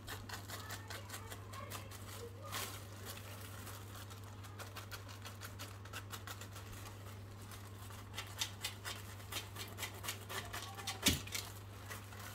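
Plastic film crinkling and crackling in light irregular clicks as it is peeled off risen dough balls, busiest in the last few seconds, with one louder click about eleven seconds in. A steady low hum runs underneath.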